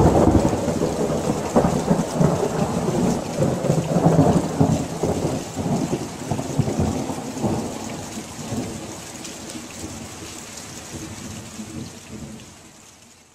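Heavy rain with rolling thunder, loud at the start and fading away steadily over the second half.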